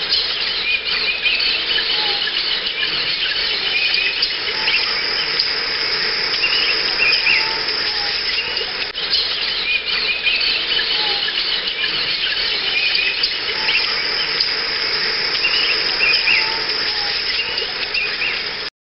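Outdoor nature ambience: many short bird chirps repeating over a steady, dense hiss, ending abruptly.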